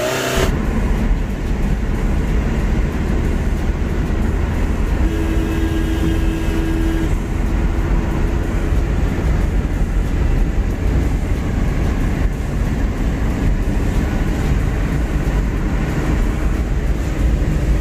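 Tata Vista heard from inside the cabin at highway speed during a speed test: a steady low rumble of engine, tyres and wind, with the swapped engine pulling easily, no fault heard.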